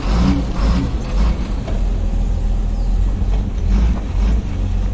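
Heavy diesel machinery running with a steady low rumble, a wheel loader working close by, with a few short mechanical knocks.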